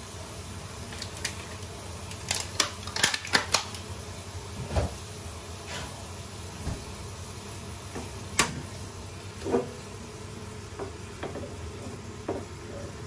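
Small pan of quail eggs cooking on a gas stove: a steady hiss, with a quick run of sharp clicks and clinks about two to three and a half seconds in and a few single knocks later.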